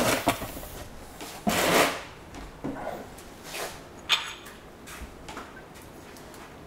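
A few separate knocks and a short scrape of metal transmission parts being handled on the bench, with one click about four seconds in that rings briefly like metal.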